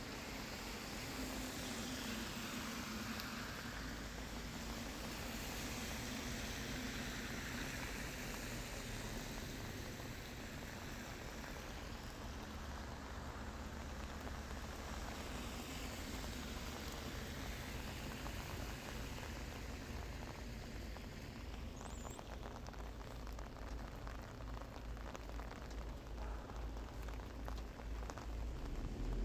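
Steady rain falling, a continuous even hiss of drops, with a low rumble underneath that grows a little louder near the end.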